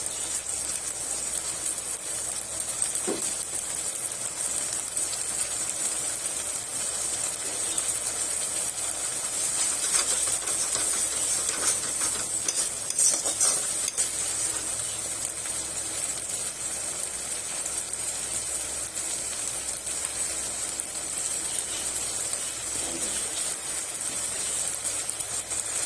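Ginger-garlic paste and a puréed onion, tomato and green chilli masala frying in hot oil in a pan, a steady sizzle, with a few spatula strokes about halfway through. The masala is being fried down until the oil separates from it.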